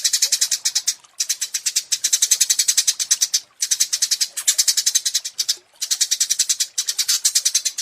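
Small songbird singing high, dry, rapid trills of over ten pulses a second, in runs of one to two seconds with brief gaps, as in a masteran song-tutor recording for contest birds.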